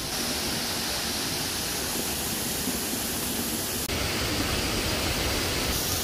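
Steady rush of a small waterfall pouring over rocks into a pool. The rushing noise changes abruptly about four seconds in.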